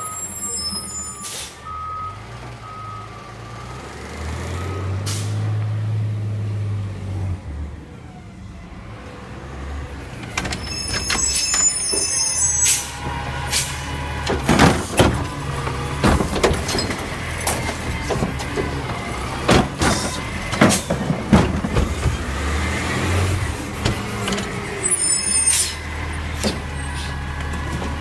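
Recycling garbage truck at work: its alarm beeping steadily at the start, its diesel engine revving for a few seconds, and a hiss of air. From about halfway, many sharp knocks and rustles of the camera being handled and carried past the wheelie bins.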